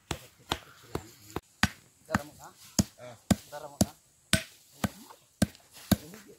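Repeated sharp knocks, about two a second, with brief voices in the middle.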